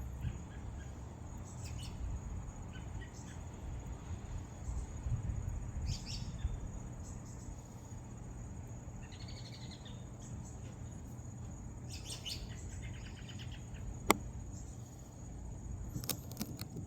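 Outdoor ambience: a low rumble with a steady high insect whine, a few short bird chirps, and one sharp click about fourteen seconds in.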